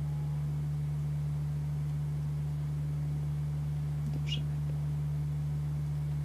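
A steady low hum, with one brief high squeak about four seconds in.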